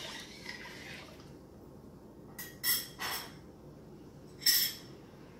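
A utensil stirring rice in a pot of water for about the first second, then four short clinks, the last three the loudest.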